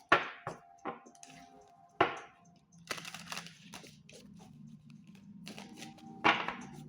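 Tarot cards being handled and shuffled: a run of sharp snaps and papery rustles, with a faint low steady hum underneath in the second half.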